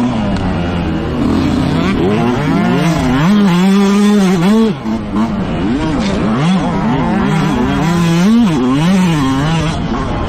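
Motocross bike engine revving up and dropping back again and again, its pitch rising and falling about once a second as it is ridden round the track.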